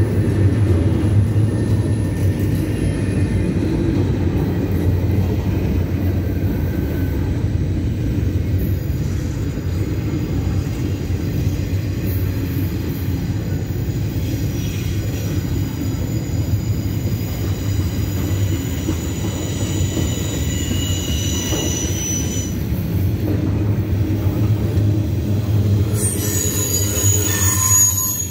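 Double-stack intermodal freight cars rolling past: a steady rumble of steel wheels on rail. Thin high squeals come and go through the middle, and a louder high squeal sounds near the end.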